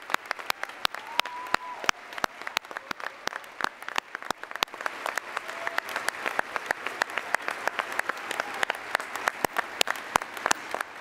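Audience applauding: many hands clapping steadily, with single sharp claps close to the microphone standing out.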